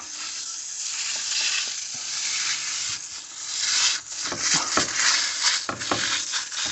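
Aerosol can of foaming air-conditioner coil cleaner spraying in a continuous hiss, with a few knocks in the second half.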